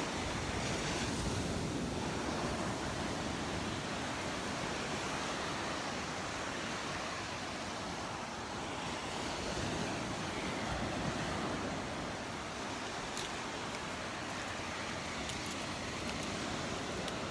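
Surf washing onto the beach with wind, a steady rushing noise.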